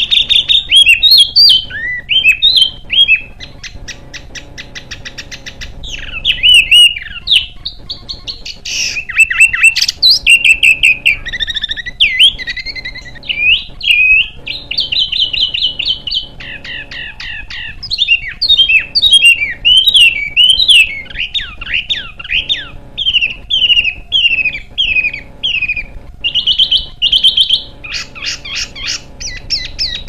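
A small songbird singing a fast, dense, harsh song: rapid trills, chattering rattles and sharp sweeping whistles, one phrase straight after another with only brief pauses.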